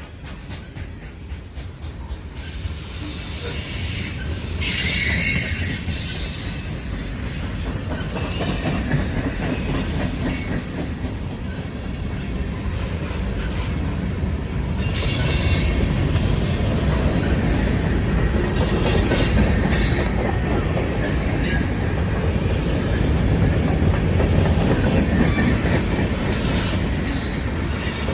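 Norfolk Southern mixed manifest freight train rolling past: the cars rumble and clatter steadily over the rails, growing louder over the first half, with brief high squeals now and then.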